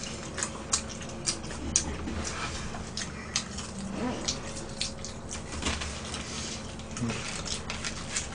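Eating noises: irregular wet smacks and clicks of fried chicken being chewed and picked apart with chopsticks and fingers.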